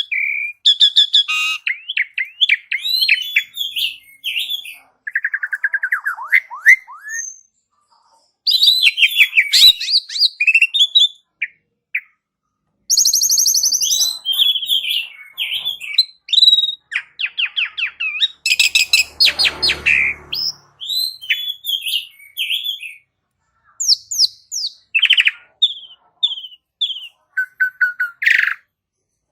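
Pied starling (jalak suren) singing a varied, loud song of whistles, chattering notes and fast rattles, in bursts separated by short pauses.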